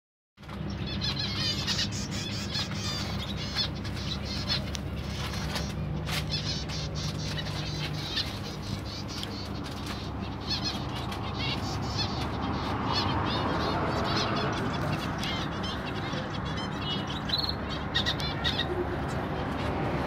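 Small aviary birds, budgerigar-like parrots and finches, chirping and twittering continuously in many short calls, with a few sharp flutters of wings, over a low steady hum.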